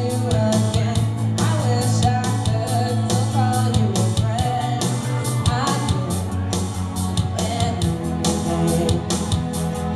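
Karaoke singing: a live voice through a microphone over a rock backing track with guitar and a steady drum beat.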